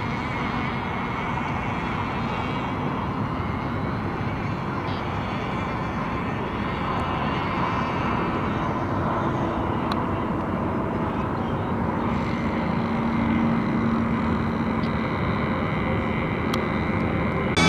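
Small engines of racing radio-controlled boats running out on the water: a steady high-pitched buzz, like a model airplane, that slowly grows louder toward the end.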